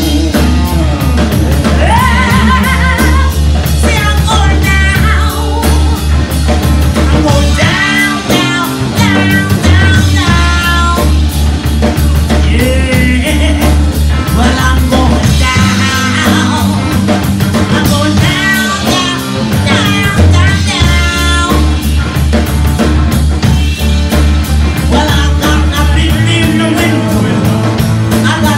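Live rock band playing: a woman singing over electric guitar, electric bass and a drum kit, with a steady pulsing bass line.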